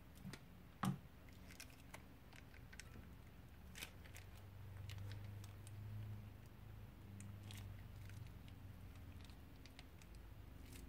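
Faint crinkling and sticky clicking of a plastic piping bag being squeezed and wrung out over a glass bowl, with one sharp tap about a second in, over a faint low hum.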